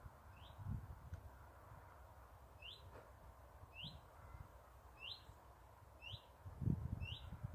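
An unidentified bird repeating one monotonous whistle: a short, high note that rises, given about once a second. Low thumps come in near the end.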